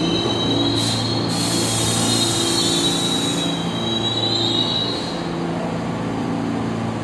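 R46 subway cars running past with a steady low hum and the wheels squealing in high, wavering screeches. A burst of hiss comes in about a second in and lasts a couple of seconds.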